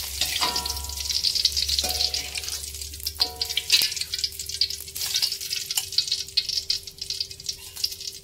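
Hot oil in a wok sizzling and crackling as fried garlic, shallots and candlenuts are scooped out with a metal spatula into a wire strainer, with a few ringing metal clinks of the spatula against the strainer and wok in the first few seconds. The crackle thins out toward the end.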